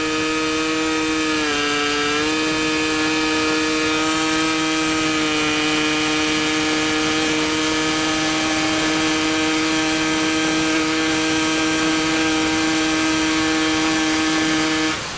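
Yamaha 125Z single-cylinder two-stroke engine, fitted with a Cagiva Mito 125 exhaust, running at speed in sixth gear, a steady high-pitched note. The pitch rises slightly about two seconds in, holds level, and cuts off suddenly near the end.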